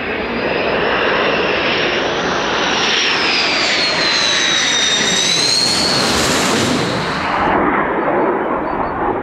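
Fighter jet passing low overhead: a loud, steady jet engine roar with a high whine that falls in pitch as the aircraft goes over.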